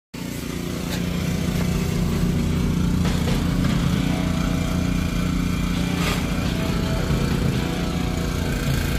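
Snowblower's small petrol engine running steadily.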